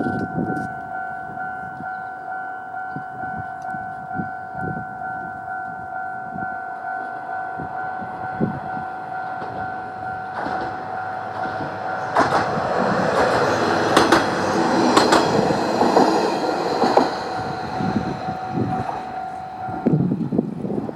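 Japanese level crossing's electronic warning bell ringing steadily while a Kanto Railway KiHa 2400 diesel railcar passes over the crossing from about 12 s in, its wheels knocking over the rail joints. The bell stops a few seconds after the train has passed.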